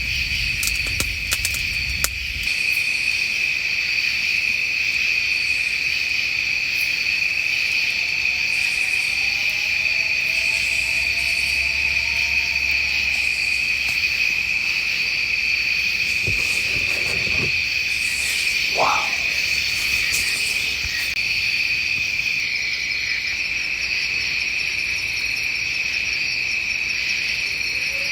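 A steady, high chorus of crickets or similar night insects trilling without pause. A faint, drawn-out call that bends gently in pitch sounds from about 8 to 13 seconds in, and a short sharp call that rises and falls comes a little after halfway.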